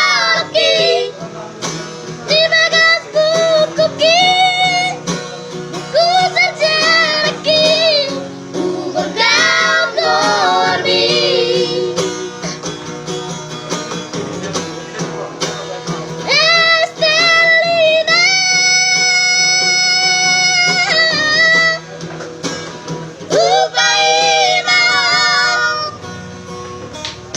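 Children's trio singing with instrumental backing, in phrases broken by short pauses, with one long held note about two-thirds of the way through.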